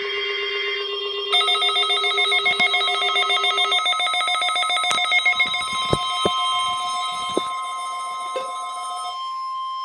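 NOAA Weather Radio 1050 Hz warning alarm tone, one steady high tone, sounding as part of the required weekly test. From about a second in until about a second before the end, a second, rapidly trilling alarm of several tones sounds over it, with a few sharp clicks in the middle.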